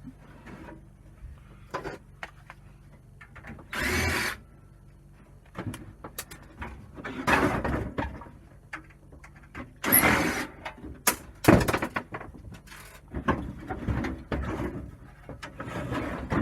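Hand work on a gas combi boiler being stripped for scrap: its metal parts scrape, rattle and knock in several short, irregular bursts, with one sharp knock about two-thirds of the way through.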